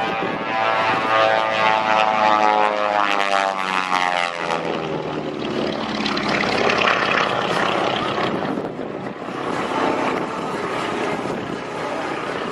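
Twin Beech (Beechcraft Model 18) twin radial engines and propellers running hard during aerobatics. The pitch falls steadily as the plane passes over the first four seconds, then it becomes a rougher engine noise that eases briefly about nine seconds in.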